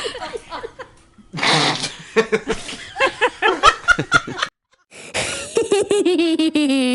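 Comic laughing sound effects played one after another: a stretch of rapid, pulsing laughter, a brief cut to silence, then a wavering tone that slides steadily down in pitch.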